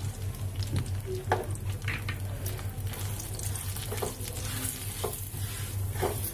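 Semolina sizzling as it fries in hot ghee in a non-stick kadhai, stirred with a silicone spatula in short, repeated scraping strokes, over a steady low hum.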